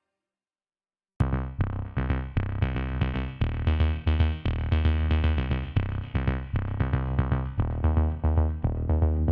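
Electronic background music with a drum-machine beat, synthesizer and heavy bass, starting suddenly about a second in after near silence.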